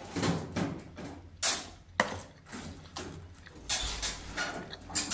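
Metal spoon stirring and scraping an oiled parsley-and-grain grape-leaf filling in a plastic bowl, in a run of irregular scrapes and knocks.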